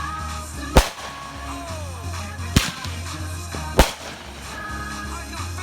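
Fireworks going off: three sharp bangs, a second or two apart, over a steady low rumble, with music playing in the background.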